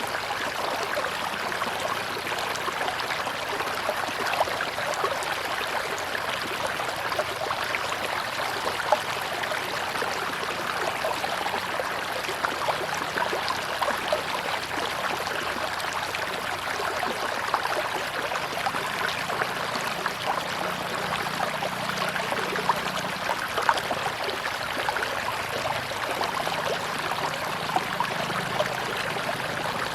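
River water flowing steadily, a continuous rushing and babbling dotted with many small splashes.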